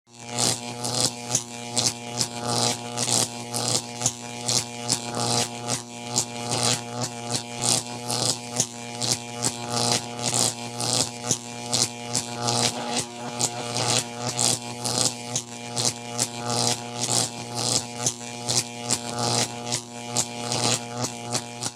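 Vintage cartoon-style electricity sound effect: a steady electric buzzing hum with sharp sparking crackles about two or three times a second at uneven spacing.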